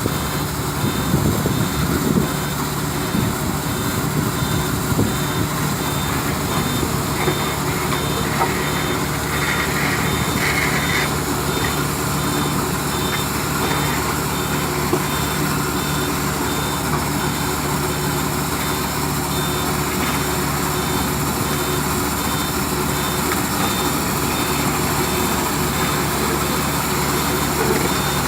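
Heavy diesel engines of a dump truck and asphalt paving machinery running steadily, with a reversing alarm beeping at an even pace.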